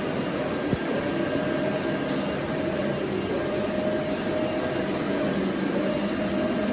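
Massey MX-2713 UV flatbed printer at work: its print-head carriage, driven by a magnetic levitation motor, makes a steady mechanical whir with a whine that comes and goes about every two seconds as the carriage traverses. A single click about three quarters of a second in.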